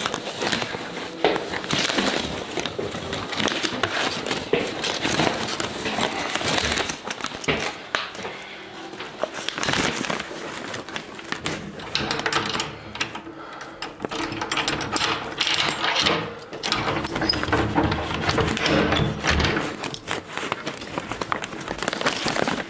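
A metal key rattling and turning in the lock of a heavy carved wooden door, and the door being opened, amid footsteps and clicking, rustling handling noise.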